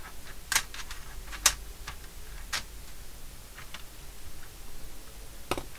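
Small toggle switches on an Altair 8800 front panel being flicked by hand: a few sharp clicks at irregular spacing, the loudest about a second and a half in.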